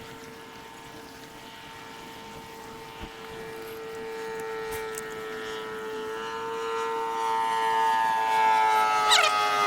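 Propeller aircraft flying over, its steady drone growing louder and dropping slightly in pitch as it passes. Three quick, sharp falling whistles sound near the end.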